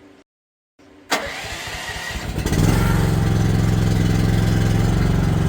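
AGT QK16R mini excavator's engine started: the starter cranks for about a second and a half, then the engine catches and runs steadily.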